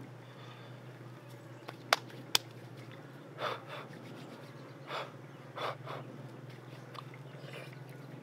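Eating grilled fish by hand: two sharp clicks about two seconds in, then several short, soft breathy sounds of someone eating, over a steady low hum.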